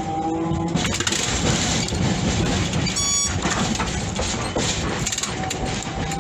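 Running noise of a Hiroshima Electric Railway 1150-type tram heard from inside the cab: a steady rumble with scattered clicks and clatter. A short electronic beep sounds about three seconds in.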